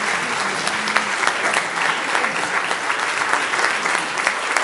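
Congregation applauding steadily after a sermon ends, a dense patter of many hands clapping.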